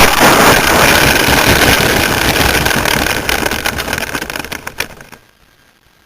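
Parkzone T-28 Trojan's electric motor and propeller running with a steady whine, heard from the wing-mounted camera under heavy rushing wind noise. The sound drops away sharply about five seconds in.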